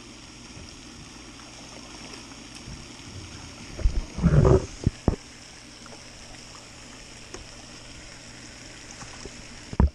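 Steady splashing of a pond fountain's spray, broken about four seconds in by a loud burst of splashing and knocks as a bass strikes a minnow under a cork float and is hooked, with another short burst near the end as it is reeled in.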